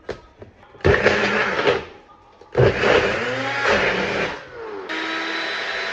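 Electric blender running in three short pulses, switched on and off, its motor whine shifting in pitch as it blends a smoothie.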